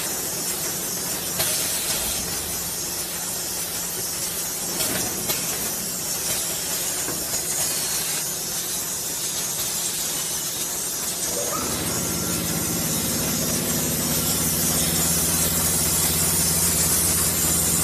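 Oil bottle filling and capping line machinery running: a steady hiss with a few sharp clicks, and about two-thirds of the way through a steady low motor hum comes in and holds.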